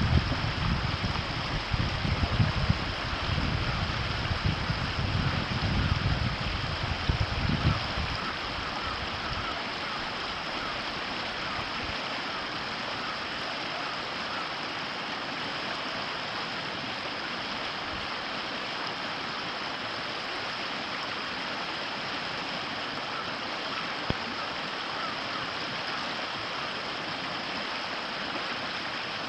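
River water running steadily as an even rushing noise. For the first eight seconds or so, low rumbling gusts of wind hit the microphone, then die away.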